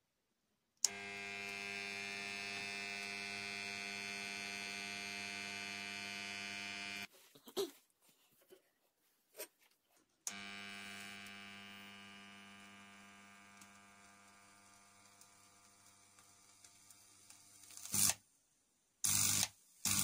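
Microwave oven transformer humming with a loud, steady mains buzz as it drives current through a sausage. It switches on with a click, goes off for about three seconds, then comes back on and slowly fades. Near the end come two loud crackling bursts as the sausage arcs and smokes where a wire enters it.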